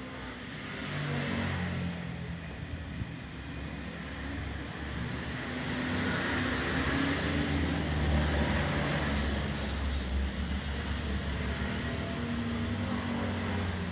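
A motor vehicle engine running, a low rumble that gets louder through the middle and then eases off.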